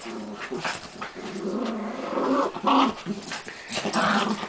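Two small dogs, a Bichon and a Schnauzer, growling at each other in a play-fight. The growls run on without a break and surge louder about halfway through and again near the end.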